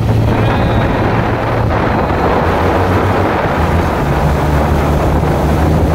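Motor passenger boats running at speed on a river: a steady engine drone with rushing water and wind on the microphone. The engine note shifts about four seconds in.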